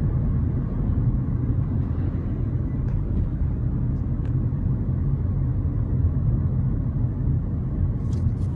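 Steady low rumble of a car's engine and tyres on the road, heard from inside the moving car's cabin, with a few faint ticks.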